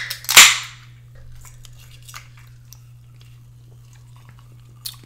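Aluminium Coca-Cola can's pull tab cracked open: a sharp crack, then a second louder snap with a brief fizz of escaping carbonation. Then quiet, with a faint click near the end.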